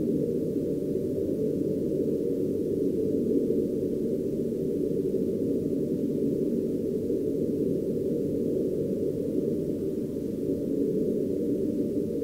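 A steady, low, muffled rumbling noise with faint held tones in it. It stays even throughout and has nothing sharper above a low, dull band.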